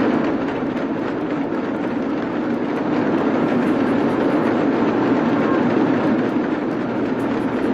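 Many damrus, small two-headed hourglass hand drums, rattled together in a loud, fast, continuous drumming.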